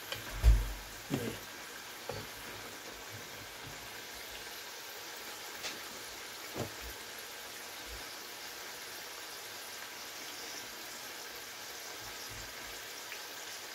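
Squashed green plantain slices sizzling steadily in a saucepan of hot oil during their second fry, with a few light knocks in the first seconds and once more about halfway through.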